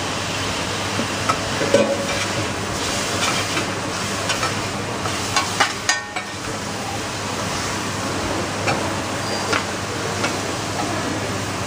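Food sizzling on a hot steel teppanyaki griddle, with metal spatula and knife clicking and scraping against the plate; a quick run of sharp clicks about five to six seconds in.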